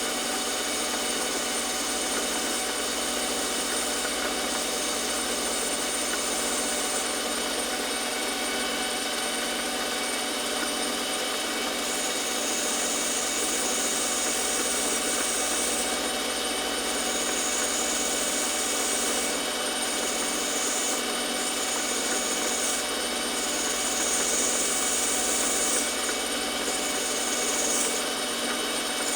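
Metal lathe running steadily, its motor and gear train humming, as it turns a step into the face of a workpiece. A high hiss of the tool cutting comes and goes in stretches from about halfway on.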